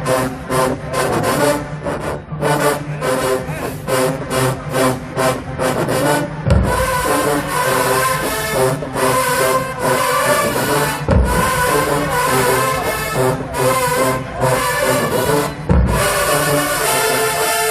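HBCU marching band of brass and drumline playing. For the first six seconds it plays short, punched rhythmic hits. After that it holds loud brass chords over cymbals, with bass-drum hits about every four or five seconds.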